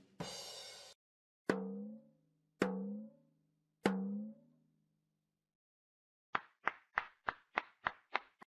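A string of short sound effects: a click and a brief hiss, then three identical pitched hits that each ring out for about a second, and near the end a quick run of about eight wooden knocks, about four a second.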